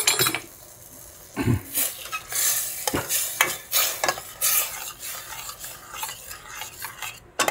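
Metal ladle stirring a watery tomato curry base in a pressure cooker, scraping and knocking against the pot in irregular strokes, while the hot liquid bubbles and sizzles.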